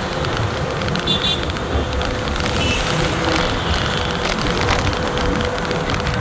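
Ola S1 Pro electric scooter riding in city traffic: wind and road noise with a faint steady whine held at one pitch. A brief high-pitched beep sounds about a second in.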